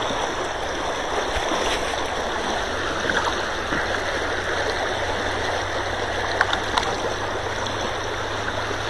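Steady rush of a shallow, rocky river riffle flowing close by, with a few faint clicks about three and six and a half seconds in.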